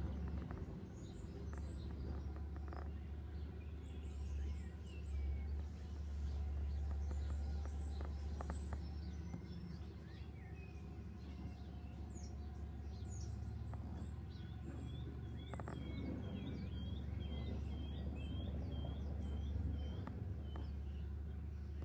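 Birds chirping and calling over a steady low rumble. Later on, one bird repeats a short high call about twice a second for several seconds.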